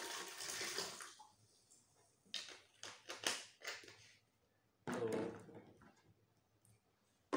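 Cola pouring from a plastic bottle into a plastic jug, the splashing stopping about a second in. Then a few short crackles and clicks of the plastic bottle being handled, and a brief knock near the middle as the jug is moved on the table.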